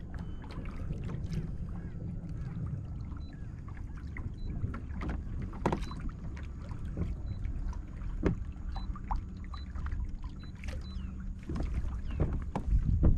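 Hobie Outback pedal kayak moving across choppy bay water: water lapping and splashing at the hull, with steady wind rumble on the microphone and scattered small knocks.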